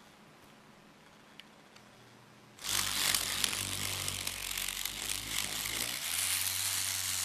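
Small brushed DC motor switched on about two and a half seconds in, spinning a plastic gear train with a steady buzzing whir and a low hum; the hum changes a little near six seconds in.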